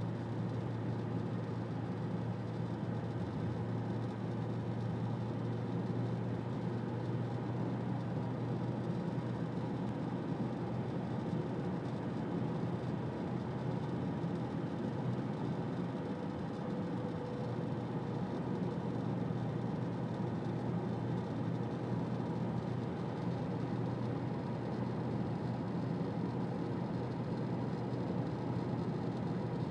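Car driving steadily, heard from inside the cabin: even engine and tyre-on-road noise with a steady low drone.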